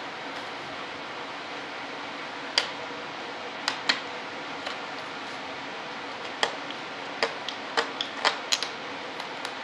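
About a dozen sharp, irregular clicks and taps of small hard parts being handled at a workbench, most of them in the second half, over a steady hiss.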